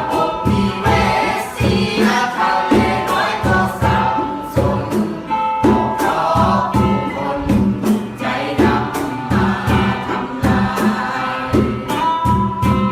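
Music with a steady beat and singing voices.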